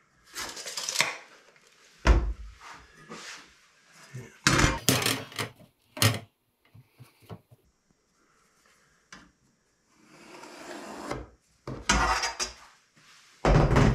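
Handling noises of a metal ruler or straightedge and an old shelving board being set down, knocked and slid on a wooden table while the board is measured and marked: several separate knocks and scrapes, the sharpest about two seconds in.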